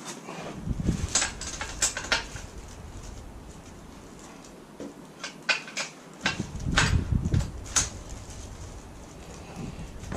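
A spanner clicking and clinking against the 12 mm locking nuts of a motorcycle's rear chain adjusters as they are cracked loose. Sharp metallic clicks come in two clusters, with dull handling knocks among them.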